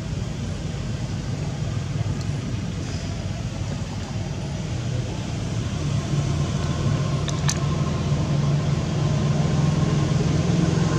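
A motor engine running steadily, its low hum growing louder about six seconds in, with one brief sharp click a little later.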